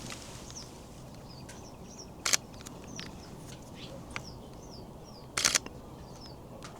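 Mirrorless camera shutter firing: a single shot about two seconds in and a quick burst of several shots about five and a half seconds in. Small birds keep calling throughout with short, high, downward-sliding chirps.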